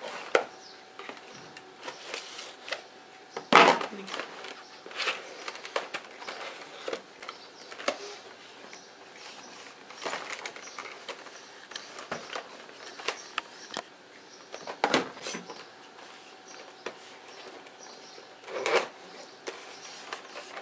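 A cardboard toy box with plastic blister packaging being handled and opened by hand: irregular rustling, scraping and crinkling, with a few sharper knocks of the box against a hard plastic surface.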